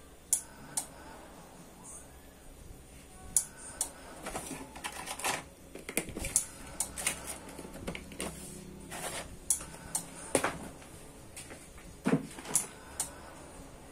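Irregular clicks, taps and clatter of small hard parts and tools being handled on a workbench, with a few sharper knocks scattered through.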